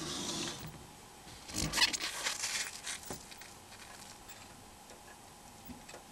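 Small plastic parts of a Nokia N95 phone being handled and pried apart as its bottom cover is separated: a soft hiss at first, then a cluster of small clicks and scrapes about a second and a half in, with a few faint ticks later.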